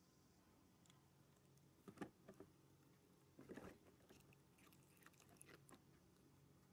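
Cat biting and chewing the cardboard edge of a cat scratcher: faint crunches, two louder ones about two and three and a half seconds in, then a scatter of small clicks.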